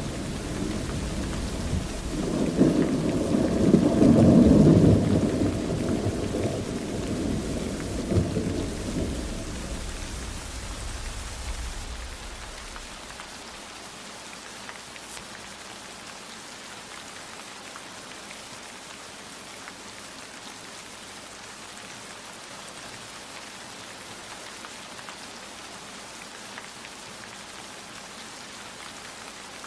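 Steady rain with a roll of thunder that swells about two seconds in, peaks a couple of seconds later and rumbles away over the next several seconds, leaving only the rain falling.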